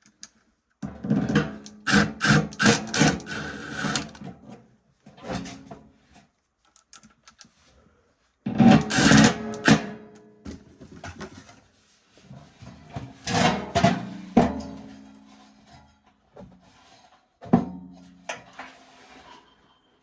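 Several bursts of clanking and rattling, metal parts knocking together with short ringing tones, separated by quiet gaps.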